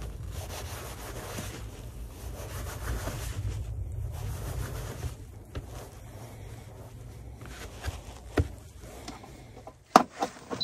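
Chef's knife sawing through salt-cured pork belly on a paper plate, the blade rubbing and scraping against the plate and wooden counter, over a steady low hum. Near the end come a few sharp knocks.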